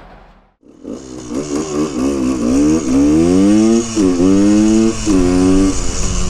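1974 Honda MT250 Elsinore's 250 cc two-stroke single accelerating, its revs climbing and then dropping sharply at two gear changes before settling into a steady lower note.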